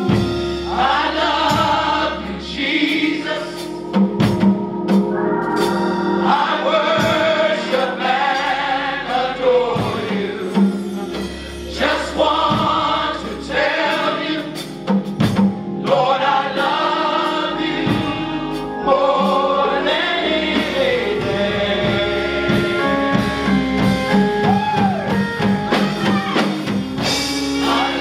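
Gospel choir singing in sustained phrases over band accompaniment, with a bass line moving from note to note and drum hits.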